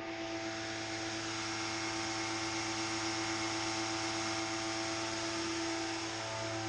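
A motor-driven machine running steadily, a constant hiss with a fixed hum. This is most likely equipment used to de-sludge the tanks.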